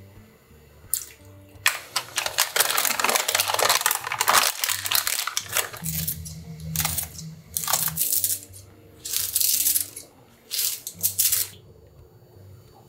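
Home cooking sounds at a pan of simmering seafood broth: cooking wine poured in, then a long noisy stretch as ingredients go in, then several short sharp sounds as kitchen scissors snip a green chili pepper over the pan. Soft background music plays underneath.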